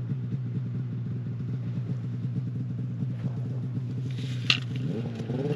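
A small engine running steadily with a low, fluttering hum; near the end its pitch rises and wavers. A single sharp click comes about four and a half seconds in.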